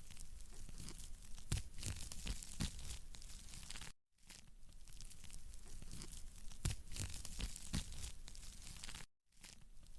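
Wood fire in a fireplace crackling: a steady hiss with frequent sharp pops and snaps. The sound cuts out for a moment about four seconds in and again about nine seconds in.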